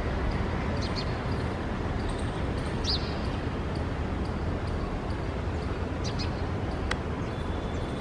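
Steady low outdoor background rumble with a few faint, short bird chirps over it, one a quick falling chirp about three seconds in.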